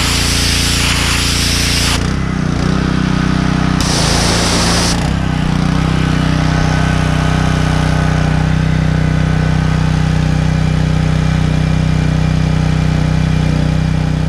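Pressure washer running, its jet hissing as it blasts the scales off a shad, over a steady motor hum. The hiss drops about two seconds in, comes back briefly around four seconds, then carries on weaker while the hum holds steady.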